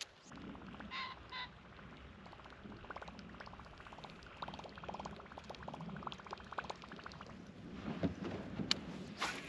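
Water lapping and sloshing against a kayak hull, with two short electronic beeps about a second in and a quick run of small ticks in the middle, then a few sharp clicks near the end.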